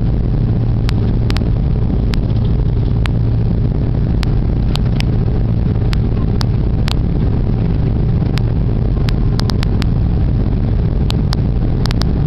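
Steady low rumble of cabin noise aboard an Airbus A330 airliner moving along the ground, the engines and rolling gear heard from inside the cabin. Scattered short sharp clicks and rattles run through it.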